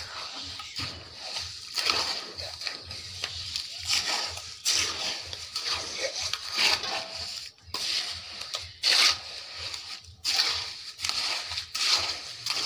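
Wet concrete of gravel, sand and cement being stirred and scraped with a small trowel in a steel basin: irregular gritty scrapes, about one a second, with water sloshing in the mix.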